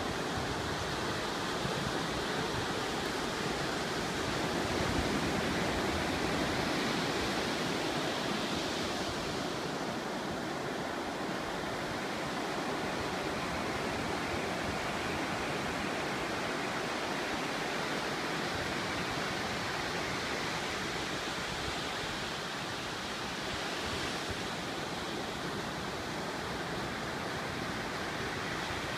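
Ocean surf breaking on a beach: a steady rushing wash of waves that swells a little louder about five seconds in.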